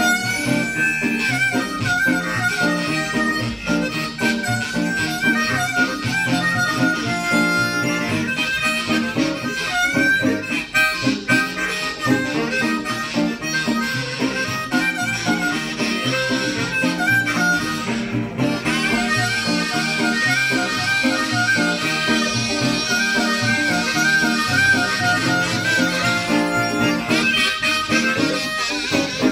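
Blues harmonica, hand-cupped at a microphone, playing the lead over guitar accompaniment in an instrumental break of a live song.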